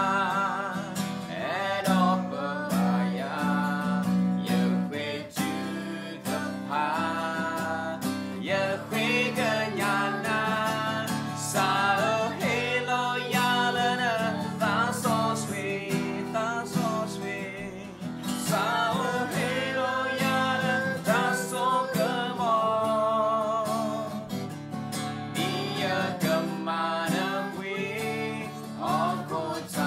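A man and a woman singing a worship song to a strummed acoustic guitar, the held notes sung with vibrato.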